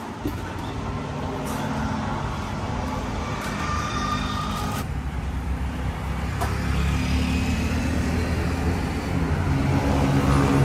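Road traffic: a motor vehicle's engine running close by, its low hum getting louder over the last few seconds.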